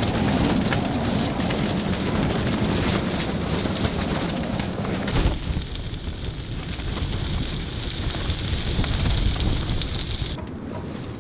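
Strong wind blowing and rumbling on the microphone. The sound changes abruptly about five seconds in and again near the end.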